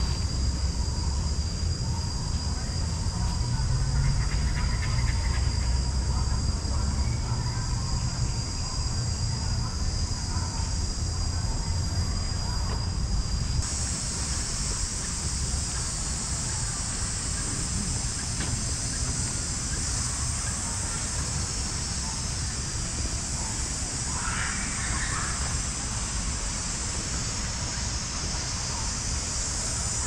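Steady high-pitched insect chorus in the trees, which becomes louder about halfway through. A low rumble runs under it in the first half, and a short call sounds near the end.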